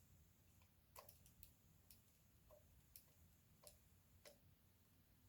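Near silence with faint, irregular small clicks, about one every half second to second: a screwdriver turning out a small screw.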